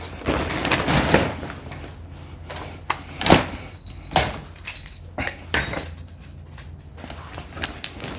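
Scrap metal pieces being handled and set down: rustling, then a series of sharp knocks and clinks, with a short metallic ring near the end.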